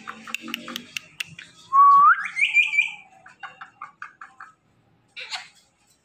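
Rose-ringed parakeet gives a loud rising whistle about two seconds in, followed straight away by a quick run of short high chirps and softer chattering notes. A few small clicks come before it, and a short call comes near the end.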